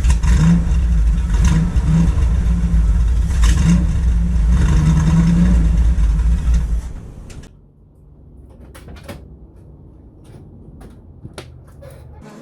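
Vehicle engine running loud, its note rising and falling a little, then stopping about seven seconds in; a scattering of clicks and knocks follows.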